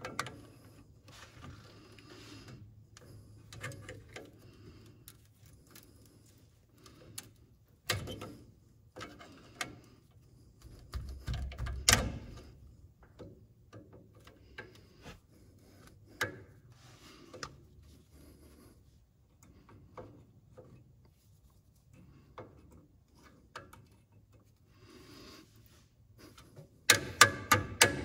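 Diagonal cutters working a cotter pin in a tie rod end's castle nut: scattered small metal clicks and scrapes, with a few sharper clicks about a third of the way in and near the middle. Near the end a fast, even run of louder clicks begins.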